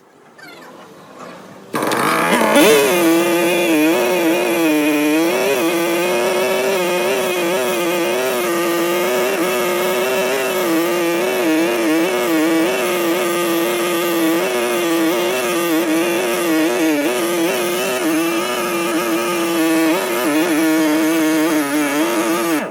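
Two-stroke chainsaw running at high revs, starting about two seconds in and cutting off abruptly near the end; its pitch wavers and dips briefly now and then.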